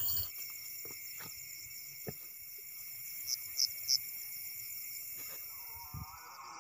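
Night insect chorus: crickets trilling steadily in several high pitches, with three short higher chirps a little over three seconds in and a few faint knocks.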